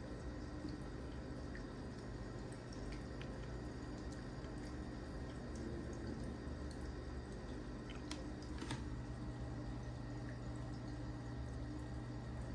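Faint, scattered clicks of a MacBook Air's keys and trackpad, with two sharper clicks about eight and nine seconds in, over a steady low hum.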